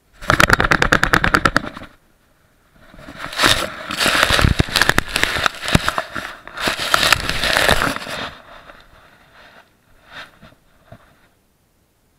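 Crackling rubbing and knocking on an action camera housing strapped to a dog's chest, as the dog's fur and body move against it. First a fast even run of clicks for about a second and a half, then a longer stretch of scraping crackle that fades out with a few weak clicks.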